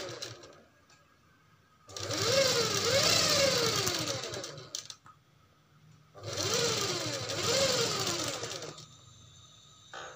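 DERBY sewing machine stitching in two runs of about three seconds each, its pitch rising and falling as it speeds up and slows, with short pauses between runs.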